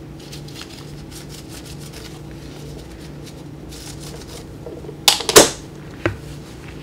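Soft rustling of a paper cleaning pad wiping the metal plates of a viscometer cell over a faint steady hum, then a loud, brief scrape-and-knock of the plate assembly being handled a little after five seconds, and a single sharp click about a second later.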